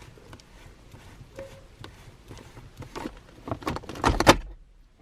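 Weighted aftermarket gear knob being twisted onto a car's gear stick: faint clicks and scrapes of the knob and insert on the threads, then a quick run of loud knocks and rattles about three and a half seconds in.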